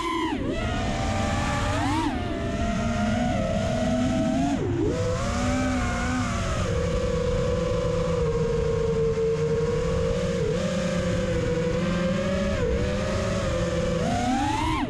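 5-inch FPV quadcopter's brushless motors and propellers whining in flight, the pitch rising and falling with throttle, with a sharp drop about five seconds in and a climb near the end.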